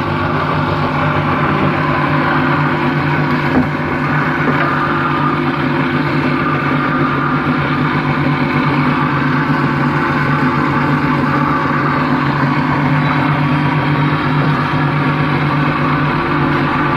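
Steady hum and whir of electric motor-driven machinery: a water-pump motor turning a car alternator by a belt, with an electric drill spinning.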